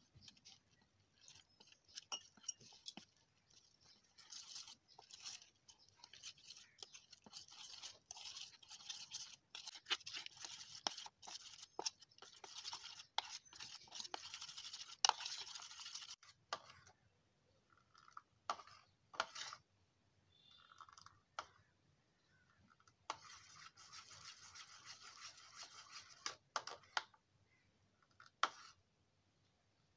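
A metal spoon beating gram-flour batter in a steel bowl: rapid scraping and clicking of the spoon against the bowl, in a long spell and then a shorter one after a pause, with scattered single clicks between.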